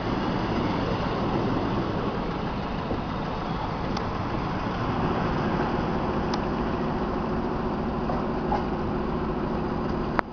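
Passenger coaches of a departing train rolling past: a steady rumble of steel wheels on rail, with a few sharp clicks, cutting off suddenly at the very end.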